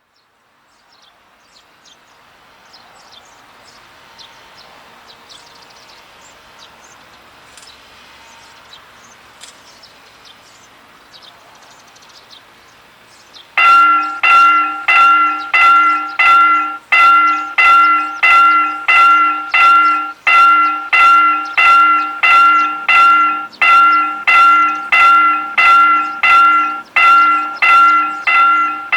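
Railway level crossing warning bell starting up about halfway through and ringing a fast, even series of electronic dings, about three a second, with a short break every few seconds: the signal that a train is approaching. Before it, only faint outdoor background with small high chirps.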